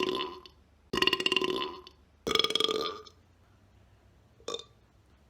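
A man belching loudly and repeatedly: a rasping belch trailing off at the start, two more long belches of about a second each, then a short burst about four and a half seconds in.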